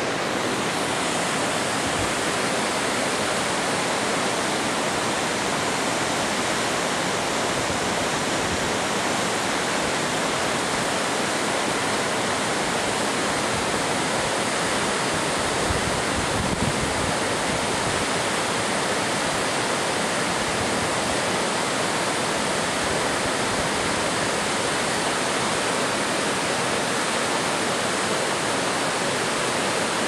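Waterfall pouring into a plunge pool: a steady, even rush of falling water that does not let up.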